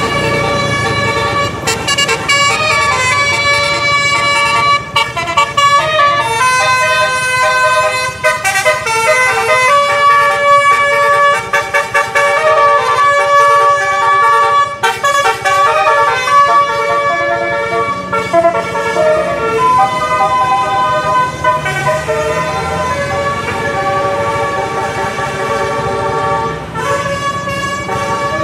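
A bus's telolet musical air horn playing a melody of many short, changing notes throughout, several pitches sounding together.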